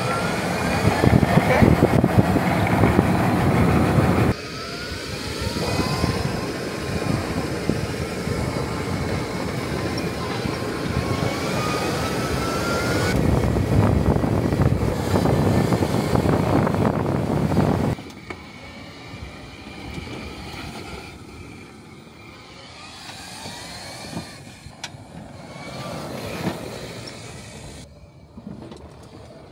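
E-Z-GO RXV electric golf cart accelerating at full throttle: the drive motor's whine rises in pitch over a loud rushing noise of wind and tyres. The rising whine comes near the start and again about ten seconds in, and after about eighteen seconds the cart is heard only faintly.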